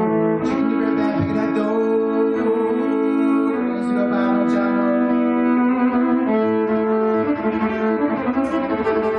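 Electric violin bowed in long held notes, several pitches sounding together, with the notes changing about a third and two thirds of the way through.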